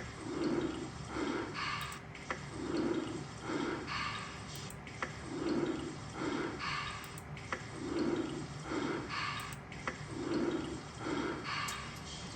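Water dripping inside a mine tunnel, with a few sharp drips over a steady rhythm of soft swishing sounds that come in pairs about every two and a half seconds.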